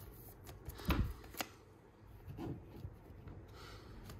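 Baseball trading cards being slid and flipped through a stack by hand: soft rubbing of card on card with a few light clicks and flicks, the loudest about a second in.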